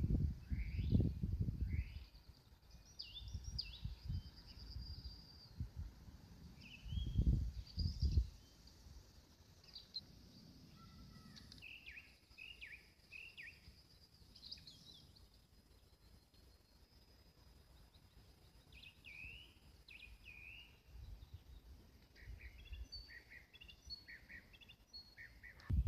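Birds singing with short, scattered chirps and twittering phrases. Low rumbling noise hits the microphone at the start and again about seven seconds in.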